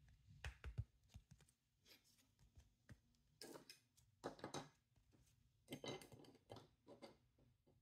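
Faint, scattered rustles and light plastic clicks of a trading card in a clear plastic holder being handled and set on a display stand.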